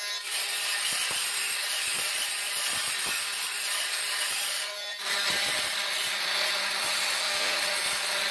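Corded oscillating multi-tool with a thin diamond-grit segment blade running steadily as it grinds old grout out of the joints between floor tiles. The sound dips briefly about five seconds in.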